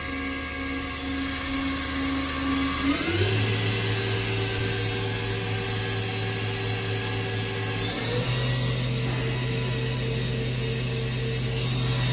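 Haas MDC-500's 7500 rpm inline direct-drive spindle running with a steady whine, stepping up in speed about three seconds in and again about eight seconds in, as its test program climbs from 4500 to 6500 rpm and then to top speed.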